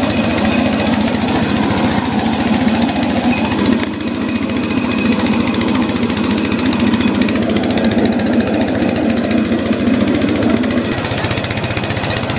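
Small engine running steadily, with a fast, even chugging that eases slightly near the end.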